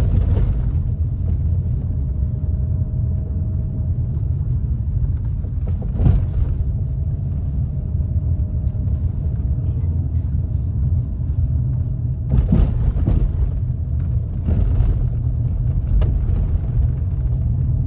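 Inside a Ford car's cabin on the move: a steady low rumble of tyres and engine on an unpaved road, broken by a few brief knocks from bumps, one about six seconds in and a couple more between twelve and fifteen seconds in.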